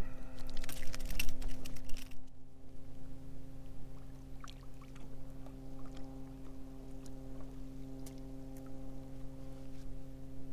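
A steady low hum with several overtones, with rustling and clicking handling noise in the first two seconds and a few faint clicks after.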